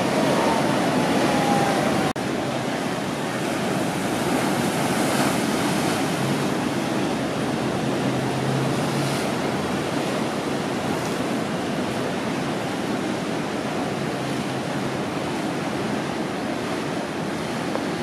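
Ocean surf: large waves breaking and washing through, a steady rushing noise, with a brief dropout about two seconds in.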